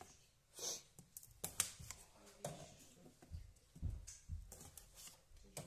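A knife scoring the shells of raw chestnuts on a thin wooden cutting board: faint, scattered clicks, scrapes and taps, with a few soft low knocks around three to four seconds in.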